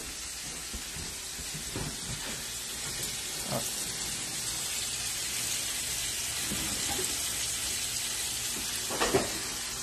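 Steak frying in a pan on a gas range: a steady sizzle, with a few faint knocks now and then.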